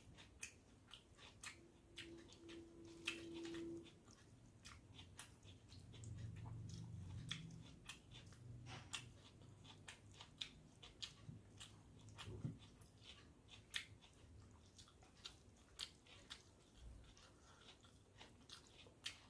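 Close-up chewing of a meal of panta bhat (water-soaked rice) with mashed potato, omelette and fried onion fritters: a quiet, irregular run of small mouth clicks and smacks. A brief low hum comes in twice along the way.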